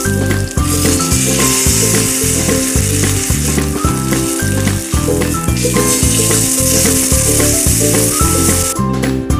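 Beef steak sizzling in hot oil in a cast-iron pan, the sizzle easing briefly about halfway through and stopping near the end. Background music with a steady beat plays throughout.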